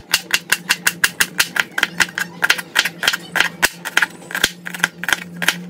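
Knife finely chopping banana flower in quick, even strokes, several a second, each a sharp tap.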